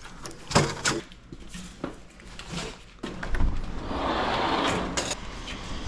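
Sharp knocks from metal parts being handled, twice in the first second, then a scraping, sliding noise lasting nearly three seconds as something is dragged or slid.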